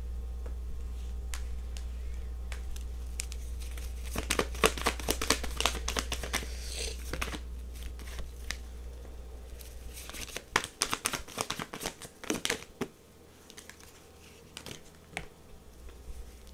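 A deck of tarot cards being shuffled and handled: papery rustling and snapping in two spells, about four to seven seconds in and again about ten to thirteen seconds in, over a low steady hum that fades out about twelve seconds in.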